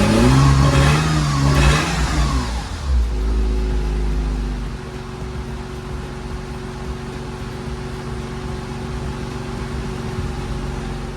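Porsche 986 Boxster flat-six engine blipped once, the revs rising and falling back over the first couple of seconds, then settling to a steady idle.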